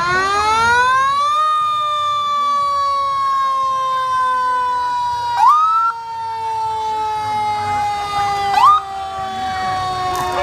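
Fire engine siren wailing: it rises in pitch for about a second and a half, then slowly winds down. Two short rising whoops cut in about five and a half and eight and a half seconds in.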